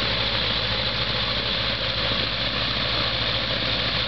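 Light gyroplane's engine idling steadily on the ground, its pusher propeller turning while the main rotor stands still.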